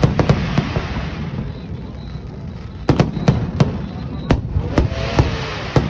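Fireworks shells bursting overhead in sharp bangs. There are two near the start, then crackling hiss, then a quick run of about six more bangs from about three seconds in.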